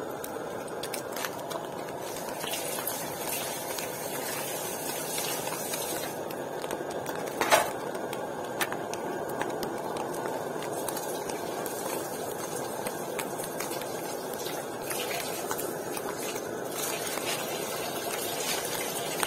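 Egg frying in a pan of foaming hot fat, sizzling and crackling steadily, with one louder pop about seven and a half seconds in.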